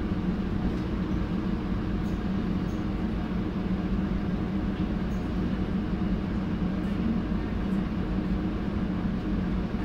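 Solaris Urbino 18 articulated city bus heard from inside: its diesel engine and drivetrain running at a steady, unchanging pitch over a low rumble.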